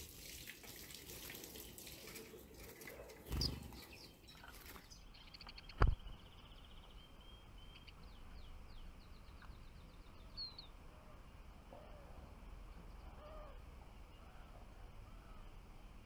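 Small songbirds, European goldfinches, calling with short high chirps and quick twittering trills, with a few lower calls in between. Handling noise and a thump come first, then a sharp click about six seconds in.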